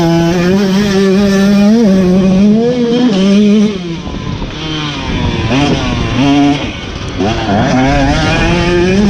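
Motorcycle engine revving hard under load. Its pitch climbs and drops back several times as the rider shifts and rolls off the throttle, easing off twice for a moment.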